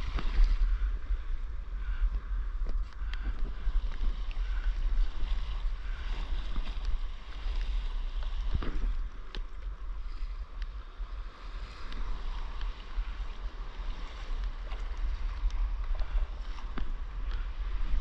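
Wind buffeting the microphone in a steady low rumble, over the hiss and splash of water rushing past the nose of a windsurf board under sail, with a few small knocks.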